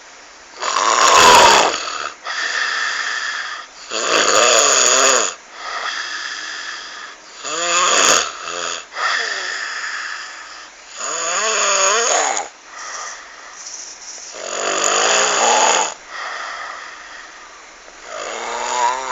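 A person snoring loudly with a rattling, croaky, frog-like sound. There are six loud snores about every three and a half seconds, with softer breaths between them.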